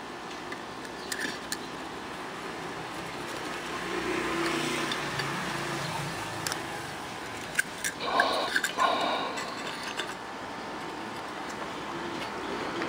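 Steady background hiss, with the sound of a passing vehicle swelling and fading about four to six seconds in, and a short cluster of sharper sounds with some pitch around eight to nine seconds in.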